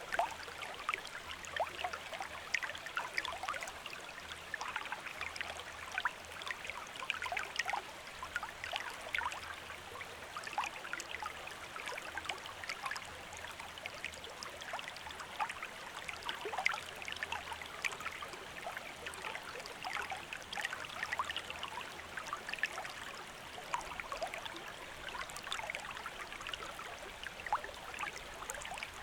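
A small river or stream flowing steadily, water trickling and bubbling over stones with many small splashes and gurgles.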